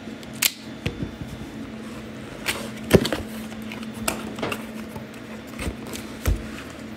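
Cardboard shipping box being handled and its flaps pulled open: scattered taps and rustles, the loudest knock about three seconds in, over a faint steady hum.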